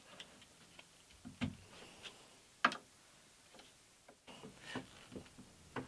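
A few light, separate clicks and knocks as the cast-iron pillow block bearing housing is nudged sideways on the drum sander's wooden frame to centre it.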